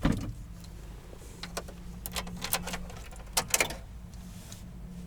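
Handling noises in a light truck's cab: a string of sharp clicks and light knocks, loudest as a quick cluster about three and a half seconds in, over a low steady hum.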